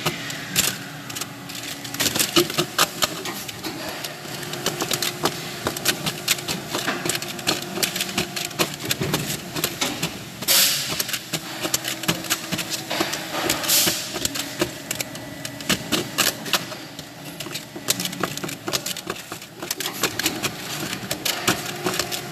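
Rapid, irregular clicking and clattering of parts being handled at a factory workbench, over a low steady machine hum. Two short hissing bursts come about ten and fourteen seconds in.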